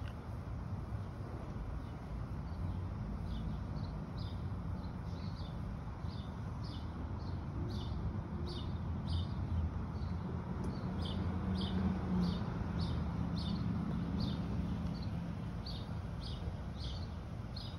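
A small bird chirping over and over, a short high chirp roughly twice a second, over a steady low rumble.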